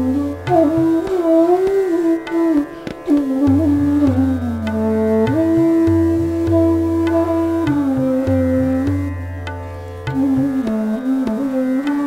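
Bansuri (D base bamboo flute) playing Raag Megh Malhar: a flowing melody with gliding notes and a long held note in the middle. It plays over a steady drone and tabla keeping medium-tempo tintal.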